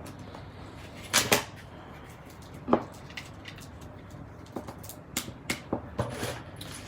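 Plastic wrapping on a spool of ribbon being handled and picked at: scattered sharp clicks and crackles, the loudest pair about a second in, then a run of smaller ones near the end.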